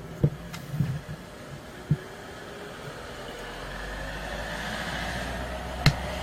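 A few light clicks and taps of a plastic plectrum against the iPhone 5's case as it is pried at the seam, the sharpest one near the end. Under them a low rumble slowly grows louder from about halfway through.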